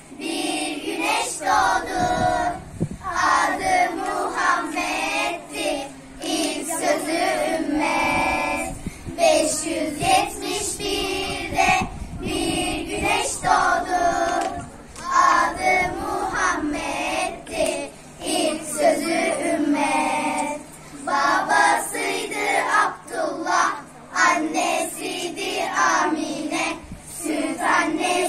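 A group of schoolchildren singing an ilahi, a Turkish Islamic hymn, together as a choir.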